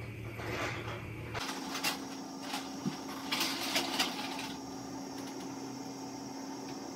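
Faint handling sounds of hands rolling filling into peeled onion layers: a few soft clicks and rustles in the middle. A steady low hum sets in about a second and a half in.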